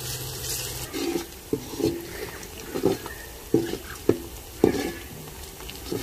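Onions frying in oil in a kadhai, with a steady sizzle, while a spoon stirs them, knocking and scraping against the pan in repeated, irregular strokes. The onions are starting to brown.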